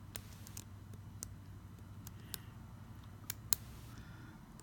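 A lock pick working the pins of a Master Magnum padlock under tension from a top-of-keyway tension tool, making light, irregular metallic clicks, with one sharper click about three and a half seconds in.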